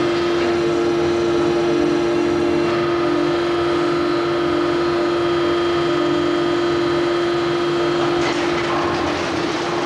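CNC machine tool in a roll-making shop running with a steady hum and a higher steady whine over mechanical noise. A rougher rushing noise sets in near the end.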